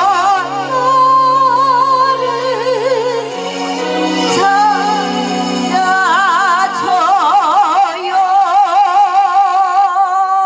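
A woman singing into a microphone over a backing track, her voice carrying a strong, wide vibrato. She holds a long final note over the last couple of seconds.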